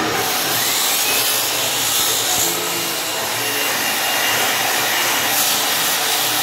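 Electric angle polisher running steadily with a diamond polishing pad on the edge of a granite piece: a continuous motor whir with the pad rubbing on the stone.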